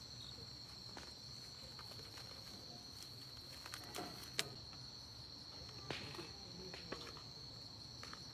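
Faint, steady, high-pitched insect trilling, such as crickets, with a few short clicks and knocks scattered through it.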